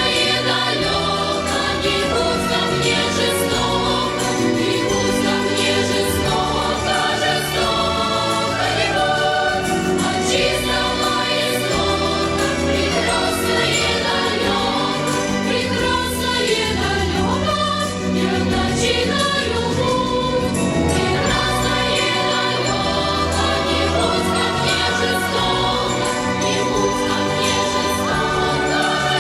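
Music: a song sung by a choir over full instrumental backing with a bass line.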